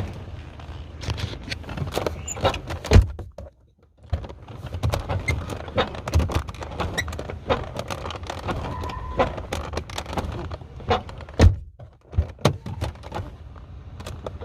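A car door is swung open and shut several times, with clicks and heavy thunks. It makes no squeak, because its check strap has just been rubbed with soap.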